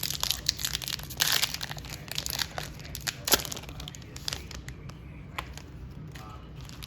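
Crinkling and crackling of trading-card packs and cards being handled, a run of sharp crackles and clicks, busiest about a second in, with one louder snap a little past the middle.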